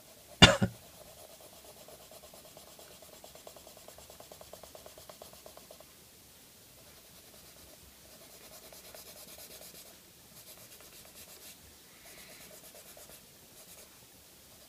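Crayola colored pencil scratching across paper in quick back-and-forth strokes as an area is shaded in flat, coming in runs with short pauses. A single sharp click sounds about half a second in.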